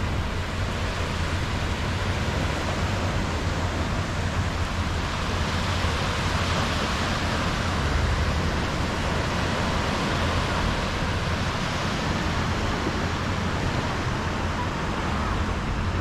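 Small sea waves breaking and washing up a sandy shore: a continuous hiss of surf that swells a little around the middle, over a steady low rumble.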